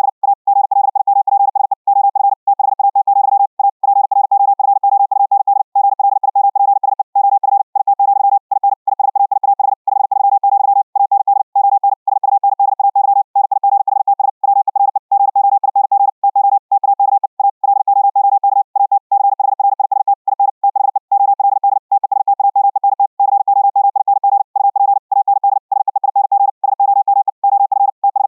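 High-speed (QRQ) Morse code at about 60 words per minute: a single tone near 800 Hz keyed on and off too fast to pick out single dots and dashes, broken by frequent short gaps between characters and words. It is heard as it comes back decoded from a Vorbis audio stream sent over RTP.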